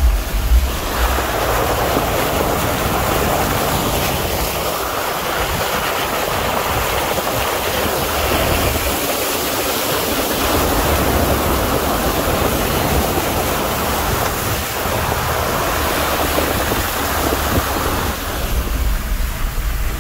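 Steady rushing wind and road noise from a 4x4 driving along a wet, grassy dirt trail, with a low rumble from the vehicle underneath.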